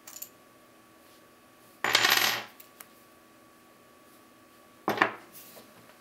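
A small metal cross-key padlock, picked open, dropped onto a wooden table twice, about three seconds apart, each time clattering and rattling briefly on the wood. A few small metallic clicks come just at the start.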